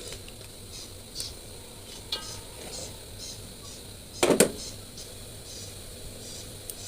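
Cookware handling: a utensil stirring and knocking against a pan over a faint sizzle, with one loud clatter about four seconds in.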